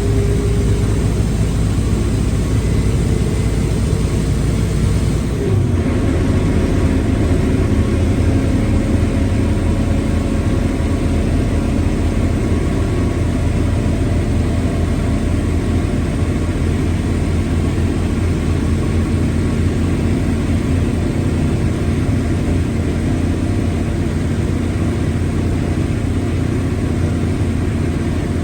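Mercedes-Benz OF-1721L BlueTec 5 bus running under way, its diesel engine and gearbox giving a steady drone with held tones from the gearbox growl. A short break about five and a half seconds in, after which the tones settle at different pitches.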